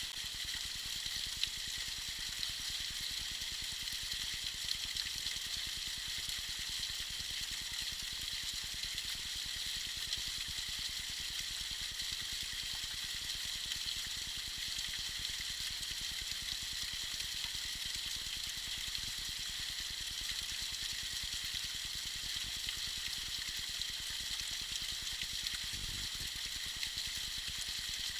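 Small icy waterfall running: a steady, even splashing hiss of falling water.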